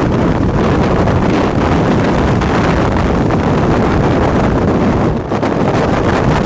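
Strong wind buffeting the microphone: a loud, steady rush of noise with a brief lull about five seconds in.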